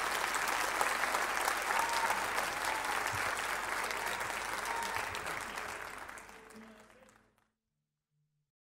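Concert audience applauding steadily after the song ends, the applause fading out about seven seconds in.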